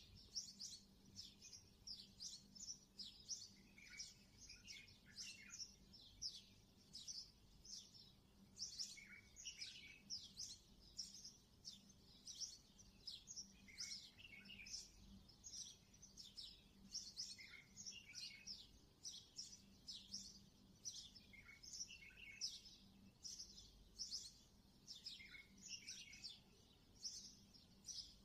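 Faint chorus of small birds chirping continuously: many quick, high chirps sweeping downward in pitch, overlapping one after another.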